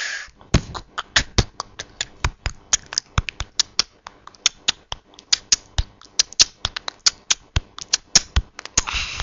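Plastic Lego minifigure tapped step by step on a hard tiled floor, making a rapid, uneven run of sharp clicks, about six a second, as it is walked along.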